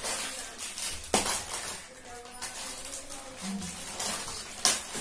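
Foil chip packets crinkling and crackling as they are opened and handled, with two sharper crackles about a second in and near the end.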